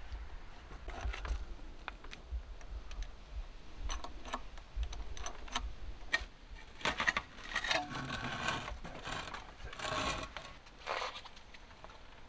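Small metallic clicks, taps and scrapes of hand tools and brake parts being handled during a motorcycle brake pad change. They come scattered at first and grow busier and louder in the second half, over a low steady hum.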